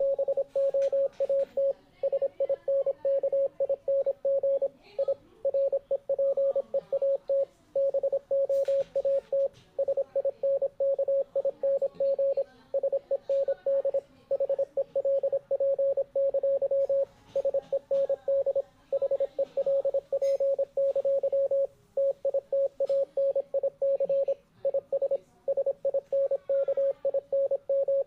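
Morse code sent as a single steady mid-pitched beep, keyed on and off in quick short and long pulses, with brief pauses between groups.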